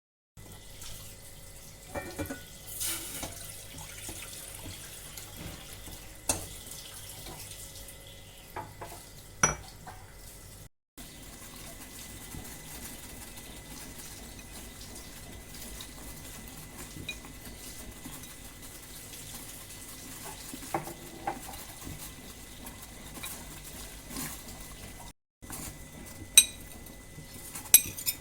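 Kitchen utensils, pots and dishes being handled, with scattered knocks and then a quick run of sharp clinks near the end, over a faint steady hum.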